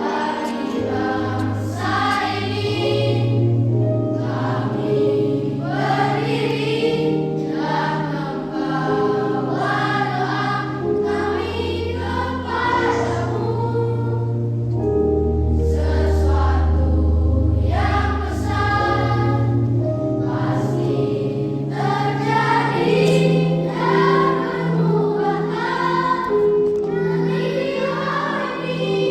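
Children's choir singing in unison phrases over an accompaniment of held low bass notes that change every second or two.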